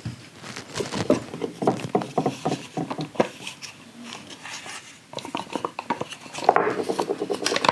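Irregular light clicks and knocks of hard plastic and small metal parts being handled while the heater blower fan assembly is taken apart, coming thicker and faster near the end.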